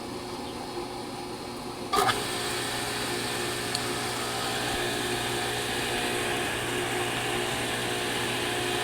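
Pool pump motor running with a steady hum. About two seconds in there is a sharp click, and the hum becomes louder and fuller for the rest of the time.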